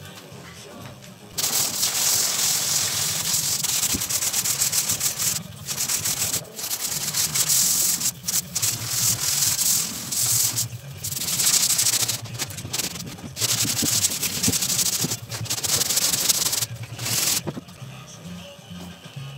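Hand sanding of cured glass-fibre body filler on a car door with a long sanding board fitted with P120 mesh abrasive: scratchy back-and-forth sanding that starts about a second in, runs in long stretches with brief pauses, and stops shortly before the end.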